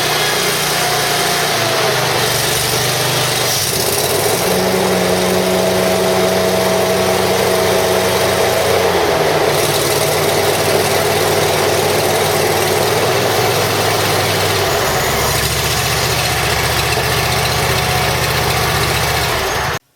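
Kawasaki FX850V V-twin engine of a Wright Stander zero-turn mower running loudly and steadily, its note stepping to a new pitch several times as the machine is operated. The sound cuts off suddenly near the end.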